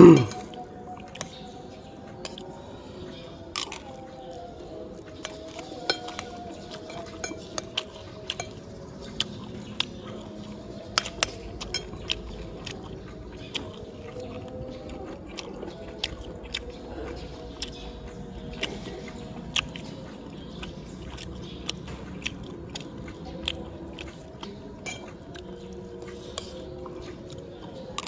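A person eating a meal close to the microphone: chewing and biting, with frequent sharp little clinks of utensils against a plate. A brief loud sound comes right at the start, and there is a faint steady hum with wavering tones behind.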